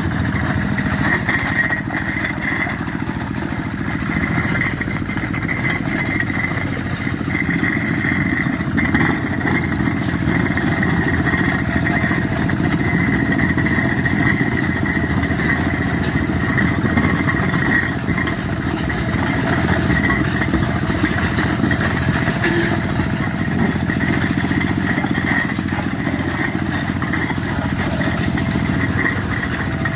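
Quick G1000 two-wheel hand tractor's engine running steadily under continuous load while it works through scrub.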